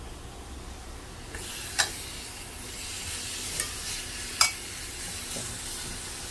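Slices of pork neck sizzling as they are laid onto a hot ridged grill pan with tongs. The sizzle starts about a second and a half in, with two sharp clicks of the tongs, the second the louder.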